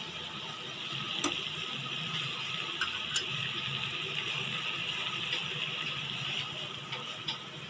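Sugar syrup bubbling steadily in a steel pan over a gas flame, a continuous fizzing hiss, with a few light clicks along the way.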